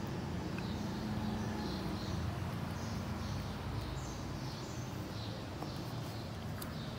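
Steady low background hum with faint, high chirps repeating about once or twice a second.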